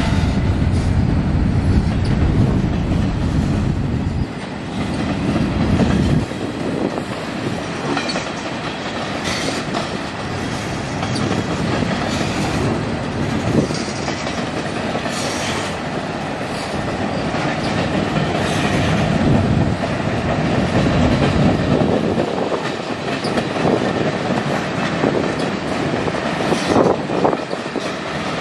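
Freight cars (covered hoppers and tank cars) of a passing manifest freight train rolling by: a continuous rumble of steel wheels on the rails, heavier at times, with sharp knocks now and then as the wheels clack over the track.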